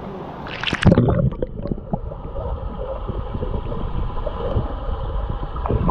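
Water splashing about a second in, then muffled bubbling and gurgling heard with the microphone under water while a capsized kayaker hangs upside down setting up an Eskimo roll, with another splash near the end.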